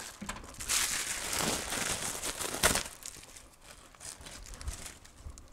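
Crinkling and rustling of plastic being handled, with a short sharp click about two and a half seconds in.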